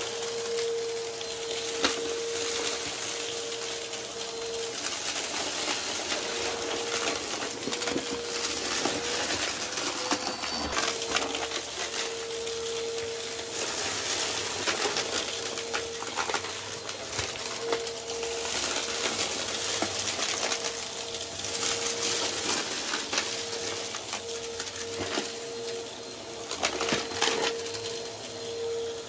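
Upright vacuum cleaner running over carpet with a steady motor whine, sucking up piles of small debris that click and rattle through it.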